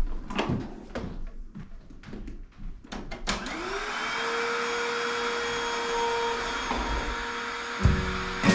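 A vacuum cleaner: a few knocks as it is handled, then about three seconds in its motor switches on and spins up in a rising whine that settles into a steady run. Music comes in over it near the end.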